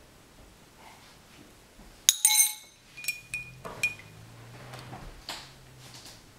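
A metal spoon is set down into a small bowl, giving a sharp ringing clink about two seconds in, followed by a few lighter clinks.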